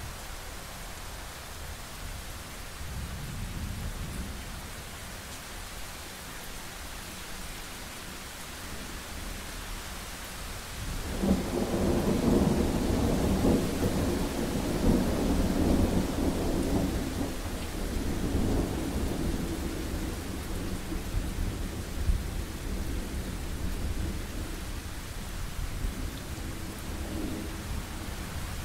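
Steady rain hiss with a long roll of thunder that breaks in suddenly about eleven seconds in, stays loud for several seconds, then slowly rumbles away. A fainter rumble swells briefly near the end.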